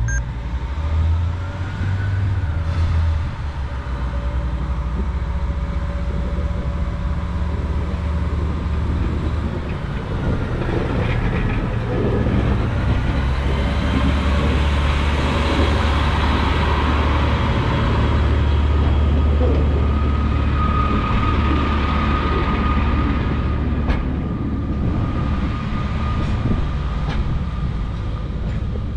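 Class 142 Pacer diesel railbus running, drawing toward and passing close by, its engine rumble loudest about halfway through, with a steady whine in the last third.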